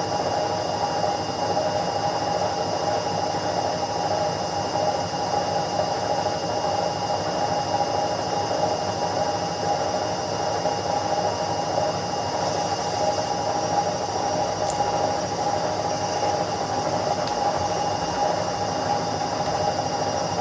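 Indesit 71252 front-loading washing machine running steadily: an even mechanical hum with a constant high whine, and a single short click about fifteen seconds in.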